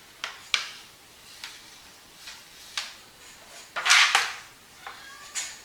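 A series of sharp clicks and knocks, with a louder scraping rush about four seconds in.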